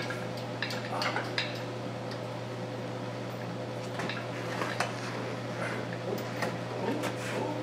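Scattered light metallic clinks and knocks from the cast-iron rockshaft housing and its hoist chains as they are worked into place on the tractor, over a steady low electrical hum.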